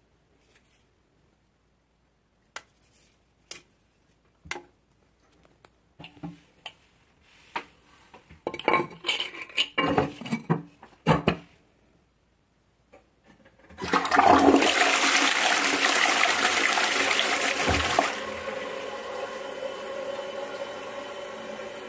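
A few sharp clicks and knocks, then a toilet flushing with a loud rush of water about 14 seconds in. After about four seconds the rush eases into a steady, quieter hiss of water with a faint ringing tone, typical of the cistern refilling.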